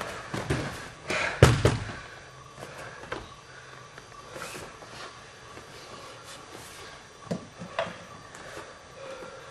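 A thrown jiu-jitsu partner hitting the mat in a breakfall: a few thuds and a loud slap-thud about a second and a half in. Then only light knocks and shuffling on the mat.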